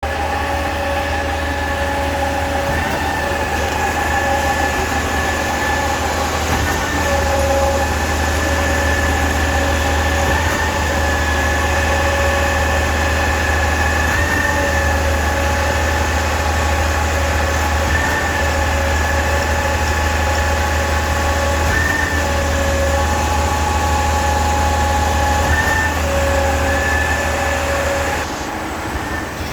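KCP63 concrete pump truck running steadily: a constant low hum with higher whining tones that shift in pitch every few seconds. The sound drops slightly near the end.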